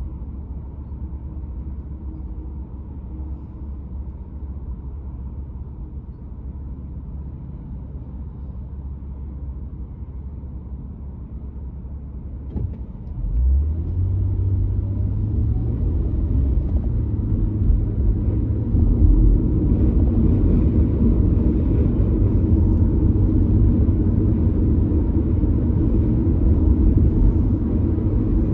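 Car idling with a low steady rumble while stopped, then about halfway through it pulls away: the engine note rises and the engine and road rumble grow louder as it drives on.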